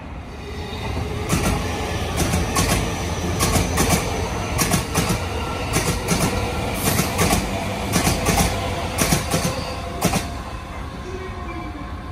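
Commuter electric train running past, its wheels clacking over the rail joints in quick groups of knocks that stop about ten seconds in.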